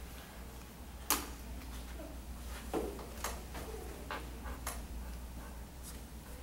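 Scattered small clicks and knocks over a steady low room hum, the sharpest about a second in, then five or six fainter ones.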